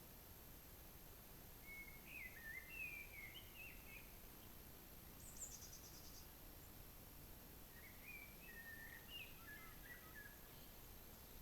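Faint songbird singing: two short warbled phrases several seconds apart over a steady background hiss, with a brief high, descending trill from a second bird between them.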